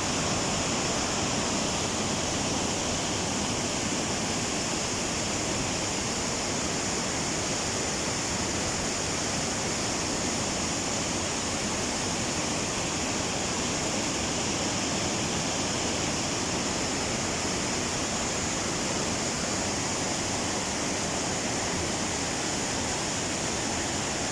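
Waterfall pouring steadily: a constant, unbroken rush of falling water.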